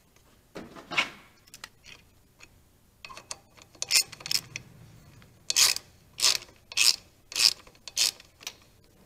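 Hand ratchet wrench clicking as it turns a mounting bolt of a motorcycle's rear brake master cylinder: a few loose clicks at first, then five regular ratcheting strokes about half a second apart.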